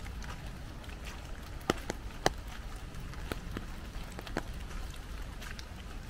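Light rain: scattered raindrops tapping irregularly on an umbrella overhead, two sharper taps about two seconds in, over a steady low noise of footsteps along a leaf-covered woodland path.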